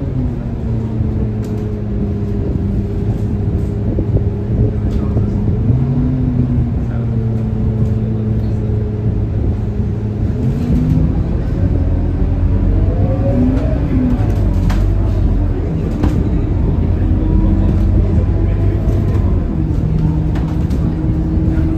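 Scania K230UB single-decker bus's diesel engine and drivetrain heard from inside the cabin while the bus is moving. The engine note falls near the start, holds steady, then climbs around the middle as the bus picks up speed again and settles at a higher pitch.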